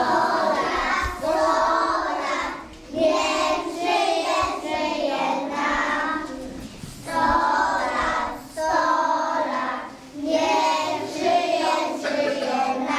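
A group of preschool children singing a song together, in phrases with short pauses between them.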